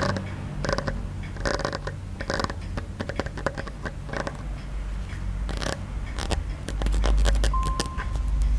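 Close-miked ASMR handling sounds on a Wenchang pagoda ornament: a few scraping, rubbing strokes, then a quick run of sharp clicks over the last few seconds.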